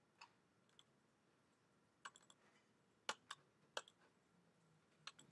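Faint, scattered clicks of a computer mouse and keyboard during drawing work: single clicks near the start, a short cluster about two seconds in, three sharp clicks between three and four seconds, and one more near the end.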